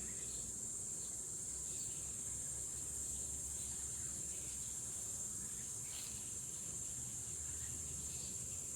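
Steady high-pitched drone of insects, such as crickets, with a faint low background rumble.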